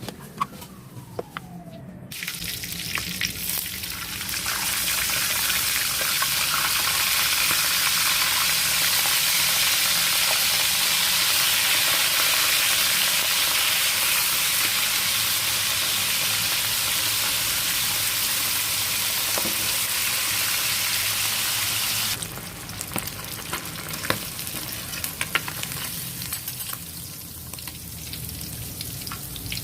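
Food sizzling as it fries in hot oil. The sizzle rises about two seconds in and holds loud and steady, then drops suddenly to a quieter sizzle about 22 seconds in.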